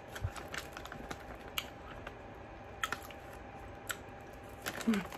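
Faint chewing and mouth clicks of someone eating sour Haribo gummy bears, with a few sharp ticks spread through it and a brief hum of voice just before the end.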